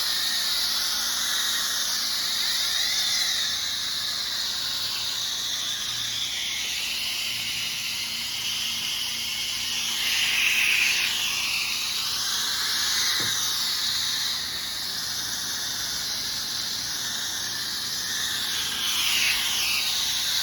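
Pressure washer wand spraying bleach solution through an XJet applicator set to a fan pattern: a steady high-pressure water hiss that wavers up and down in pitch as the spray moves.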